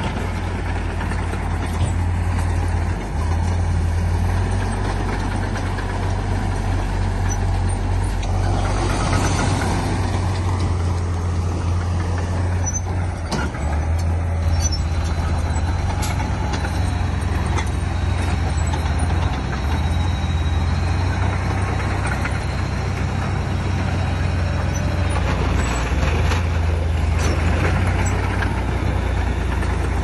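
Diesel engine of heavy earthmoving machinery running steadily under load, a deep drone with clanking from the work. A louder rush of noise comes about eight seconds in, and there are a few short clanks later on.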